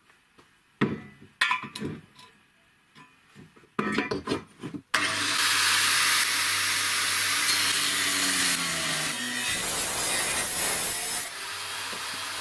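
Clunks and knocks of a square steel tube being set down and shifted on a steel base plate. About five seconds in, an angle grinder fitted with an abrasive cut-off disc is switched on and runs steadily at high speed. Past halfway its sound turns to a rougher hiss, typical of the disc cutting into the steel.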